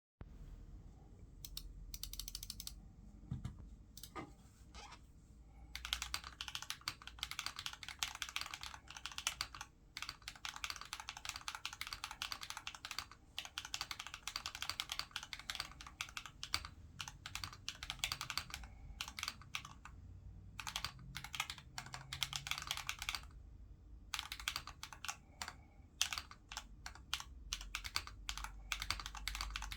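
Typ65+ mechanical keyboard with KNC Green Jacket switches lubed with 205g0 and MW Voynich keycaps, typed on quickly in long runs of rapid keystrokes with brief pauses. Only a few scattered keystrokes come in the first few seconds before the fast typing starts.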